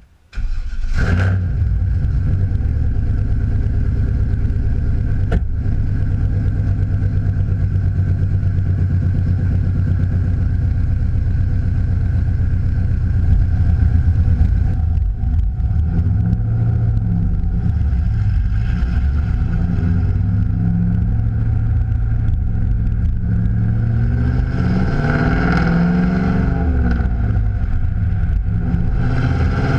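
Chevrolet Camaro SS's LS1 V8, fitted with long-tube headers and an SLP Loudmouth exhaust, starts with a sudden flare and settles into a loud, steady idle, with a single sharp click about five seconds in. In the second half the car pulls away under light throttle, and the engine note rises and falls as it accelerates through the gears.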